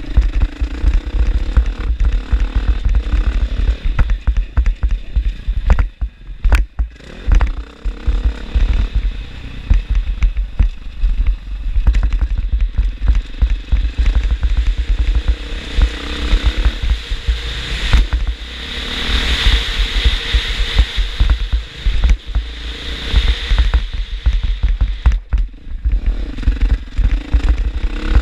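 KTM 500 dirt bike's single-cylinder four-stroke engine revving up and backing off around a motocross track, with heavy wind buffeting on the helmet-mounted microphone.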